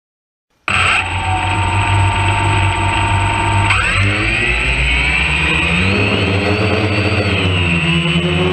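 Camera drone's electric motors and propellers starting up abruptly about a second in and spinning at idle with a steady whine. Just before four seconds they spool up in a rising whine as the drone lifts off, then hold a higher, wavering whine as it climbs. The sound is picked up right beside the rotors.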